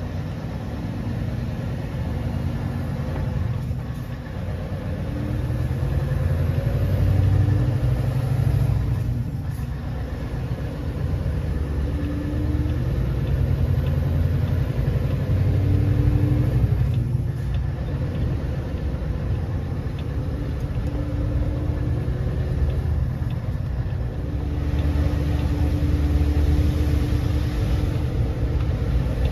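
Lorry's diesel engine and road noise heard from inside the cab as it drives along, a steady low rumble whose engine note fades and returns a few times, dipping briefly about 9 and 17 seconds in.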